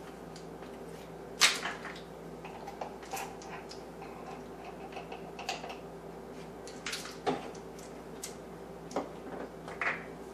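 About ten light, irregularly spaced clicks and taps of a metal measuring spoon against plastic spice jars and a small bowl as ground spices are measured out, over a faint steady hum.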